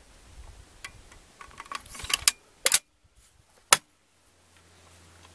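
Metal parts of a .50 BMG semi-automatic rifle clicking and clacking as its bolt assembly is handled and slid back into the receiver by hand: a run of small clacks, two quick clicks, then a single sharp click near the end.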